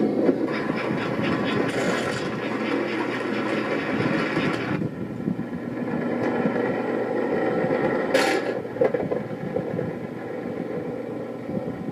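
Toy train running along its track, a steady rumbling clatter, with a brief hiss about eight seconds in.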